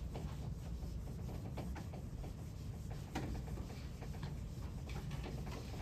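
Irregular light taps and short scratches of writing on a board, over a steady low room hum.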